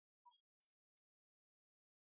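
Near silence, with two faint short ticks in the first second.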